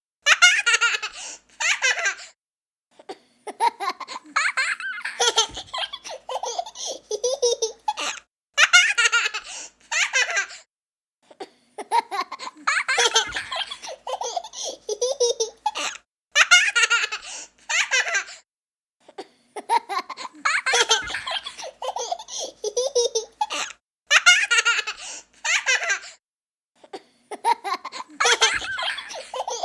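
Young child laughing in repeated fits of giggles and belly laughs, each a second or two long, with brief silent pauses between them.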